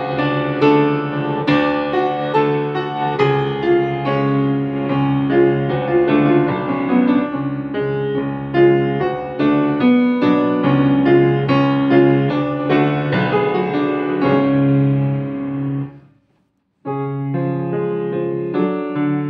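Solo piano playing: a steady stream of notes over sustained low bass notes. About sixteen seconds in the sound drops to silence for under a second, then the playing picks up again.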